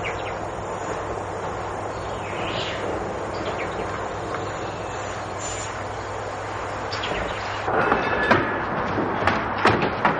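Steady outdoor ambience, an even hiss with a few faint bird chirps. About three-quarters of the way in it gives way to busier room noise with scattered clicks and knocks.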